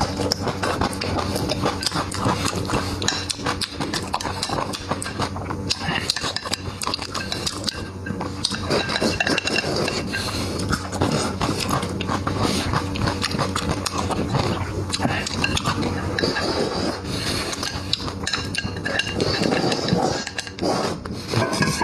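A person eating close to the microphone, chewing and smacking, with utensils clinking against dishes.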